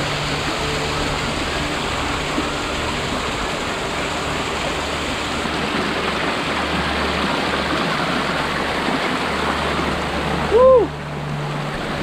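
Waterfall and stream water rushing steadily. About ten and a half seconds in, a brief loud pitched cry that rises and then falls stands out above the water.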